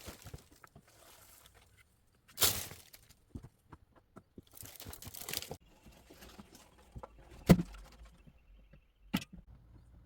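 Intermittent rustling and handling noises with a few sharp knocks, the loudest about seven and a half seconds in.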